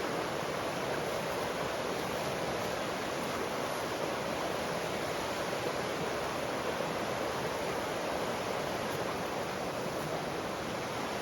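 Steady rush of running creek water, an even unbroken wash of sound.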